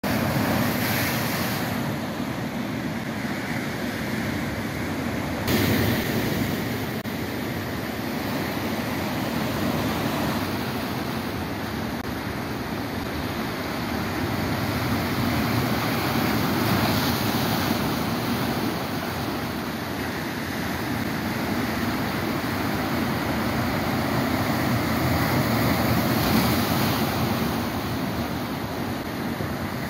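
Sea surf breaking and washing over a rocky shore, a continuous rush of water that swells and eases as each wave comes in, with a sudden louder burst about five seconds in.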